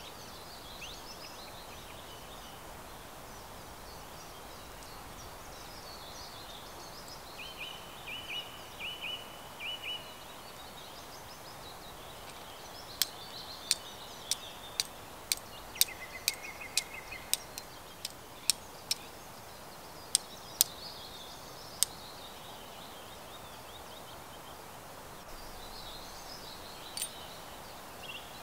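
A run of about fifteen sharp strikes, roughly every half second for about nine seconds from a third of the way in, typical of a flint being struck with a fire steel. Small birds sing throughout, including a repeated trill.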